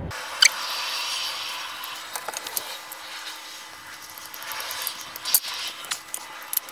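A hex key turning a screw by hand into a wooden stool frame: steady scraping and rubbing, with a few sharp clicks as the key is reset.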